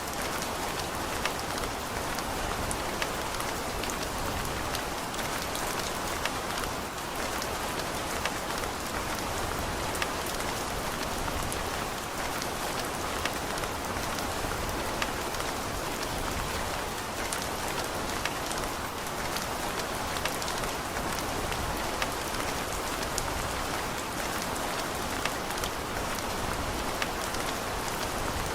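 Steady rain falling, a constant hiss with many individual drops pattering on surfaces.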